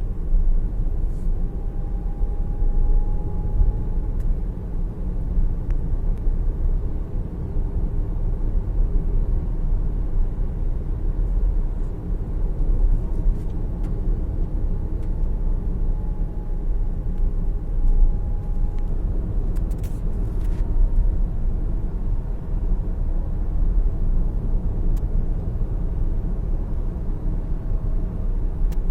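Interior sound of an MG ZS EV driving: steady low road and tyre rumble with a faint electric-motor whine that rises and falls. About two-thirds of the way through comes a quick cluster of sharp clicks, the recurring three-click noise from underneath that the owner suspects is in the transmission.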